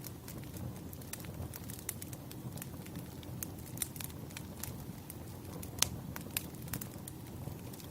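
Wood fire crackling: a steady low rumble of burning logs with irregular sharp pops and snaps, the loudest pop nearly six seconds in.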